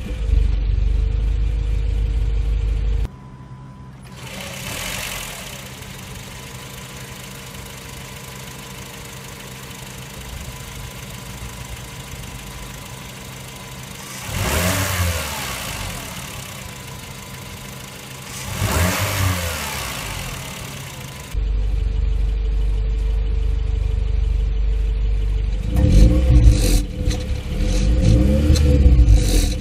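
Honda Freed Hybrid (GP3) engine idling low and steady through a Fujitsubo Authorize E dual-outlet muffler, heard close at the twin tailpipes. For a long middle stretch it is heard from the engine bay, where the idle is much quieter and the engine is revved twice. Back at the tailpipes it idles, then is revved in several quick blips near the end.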